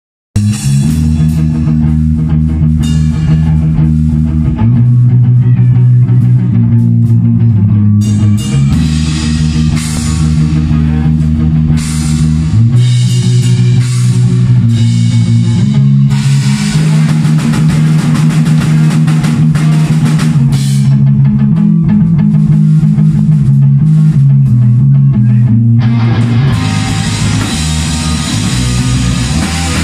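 Rock music with guitar, bass and drum kit, starting suddenly at the very beginning and playing loudly throughout, with the bass notes shifting every few seconds.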